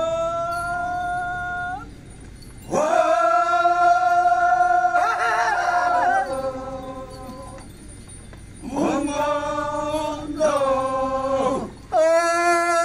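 Men singing a Phom Naga folk dance chant in long, steadily held notes, about four phrases with short breaks between them. A second voice wavers over the long phrase in the middle.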